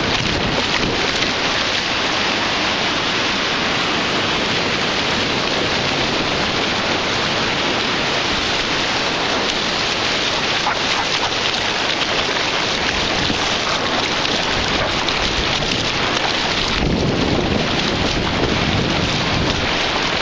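Steady rush of wind buffeting a phone microphone over shallow surf washing across the sand, with a dog's paws splashing through the water. A stronger, deeper gust of wind comes in near the end.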